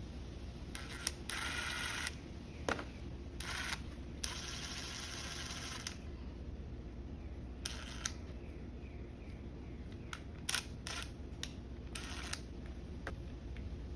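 Hand work on small engine parts: scattered sharp clicks and taps with several short scraping, rustling bursts, over a steady low hum.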